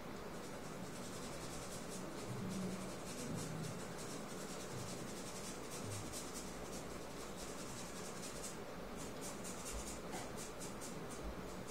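Paintbrush scrubbing paint onto a painting surface in repeated short strokes, a dry scratching rub. Near the end the strokes come apart into quick separate swipes, several a second.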